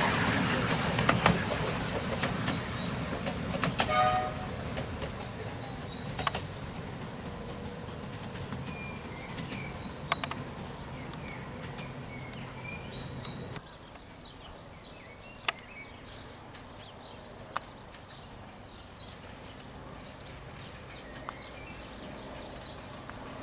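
A 7¼-inch gauge miniature railway train with a diesel locomotive running away from the listener, its low rumble fading, with occasional sharp clicks. About halfway through it drops to a quieter, more distant running sound, with birds chirping throughout.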